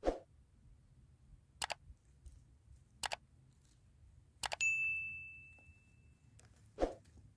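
Subscribe-button animation sound effects: a soft pop as it appears, two sharp mouse clicks, then a click and a bell notification ding that rings and fades over about a second and a half, and a soft pop near the end.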